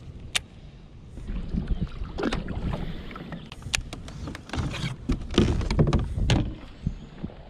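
Handling noises on a fishing kayak: a few sharp clicks and a run of knocks and rustles as rod, reel and gear are moved about, with low wind rumble on the microphone.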